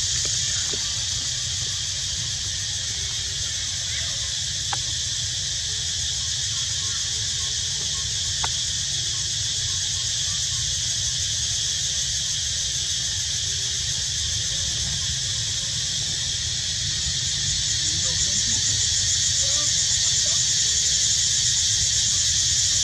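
Steady, high-pitched drone of cicadas, growing a little louder in the last few seconds, over a low steady rumble.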